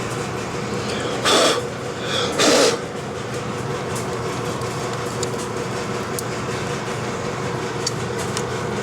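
A steady machine hum throughout, with two short, loud breathy rushes of noise about one and two and a half seconds in, and a few faint clicks later on.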